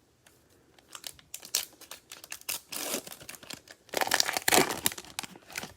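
A Mosaic basketball card pack's wrapper crinkling and being torn open, ripping cleanly across the top. It comes as a run of sharp crackles, with the loudest tearing about four to five seconds in.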